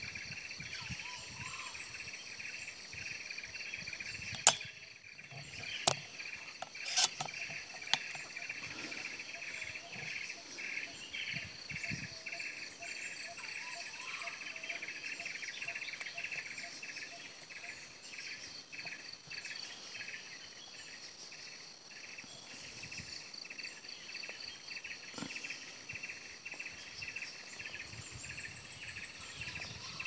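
Steady pulsing chorus of insects in the trees, with faint bird calls. About four and a half seconds in comes a single sharp shot from the hunting rifle, the loudest sound, followed over the next few seconds by three lighter clicks.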